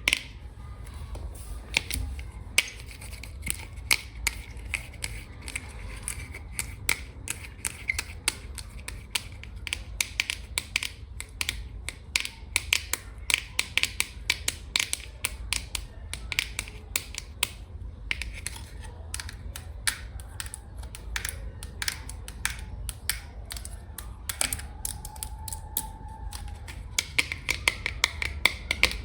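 Long fingernails tapping quickly and irregularly on hard containers: a dense run of sharp, crisp clicks, several a second, over a faint steady low hum.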